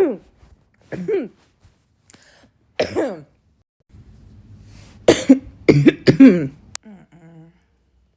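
A woman coughing repeatedly in short, harsh bursts. There is one about every second or two at first, then a quick run of several about five to six seconds in.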